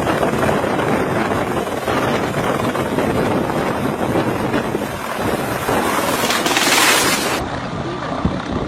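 Loud, steady wind-like rushing buffeting the microphone, swelling to a brighter hiss about six and a half seconds in. Just after that it cuts abruptly to a quieter, duller rumble.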